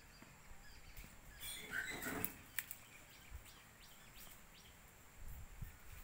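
Faint birdsong: a louder cluster of chirps and calls about two seconds in, then several short falling chirps. A few low thuds near the end.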